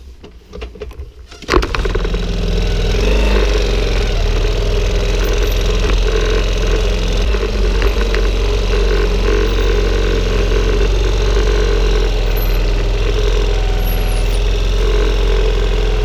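Small motorcycle engine starting about a second and a half in, then running steadily at low speed.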